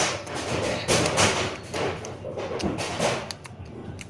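Crunchy slime being squeezed and pressed by hand, giving a run of irregular crackling, squelching bursts.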